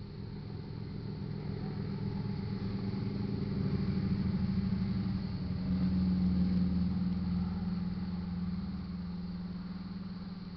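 A vehicle engine running, growing louder to a peak about six seconds in, then fading.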